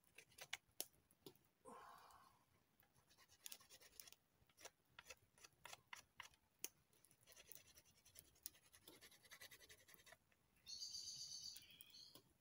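Faint scratching and small irregular clicks from handwork on a piece of leather with a small hand tool. Near the end comes a brief high chirping sound, louder than the scratching.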